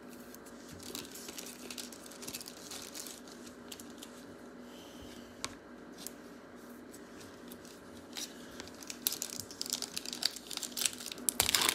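Trading cards slid and flicked against each other in the hands, then a foil card-pack wrapper torn open and crinkled, the crackling getting denser and louder near the end.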